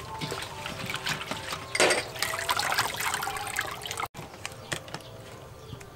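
Hands swishing raw shrimp through water in a plastic colander set in a stainless steel bowl, with a louder splash about two seconds in; the colander is then lifted and water drips and trickles back into the bowl before the sound cuts off suddenly about four seconds in.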